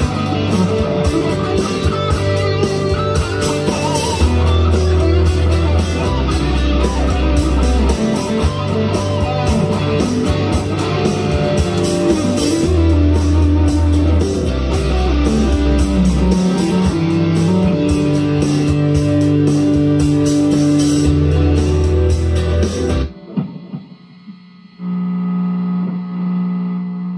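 Electric guitar, a Firefly FFLPS Les Paul copy, played over a backing of drums and bass. The band sound stops abruptly near the end, and a single chord is left ringing.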